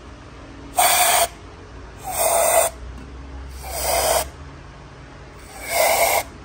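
Four short bursts of aerosol brake cleaner sprayed through a straw nozzle into the ports of a cylinder head, each a hiss about half a second long. This is a valve-seal leak test: the solvent fills the ports so any seepage past the valves into the combustion chambers would show.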